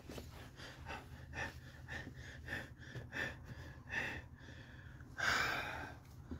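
Soft, quick rustling and dabbing noises from a spill of yogurt being wiped up, then a loud breathy exhale about five seconds in.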